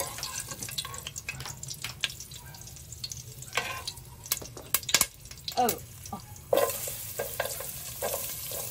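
A ladle stirs and scrapes hot cooking oil in a pot, clicking against the sides. About two-thirds of the way through, chopped onions are tipped into the oil and it starts to sizzle steadily.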